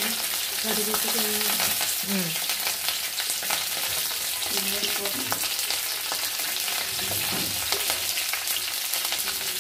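Curry leaves frying in hot coconut oil in a metal wok: a steady sizzle with many small crackles and spits.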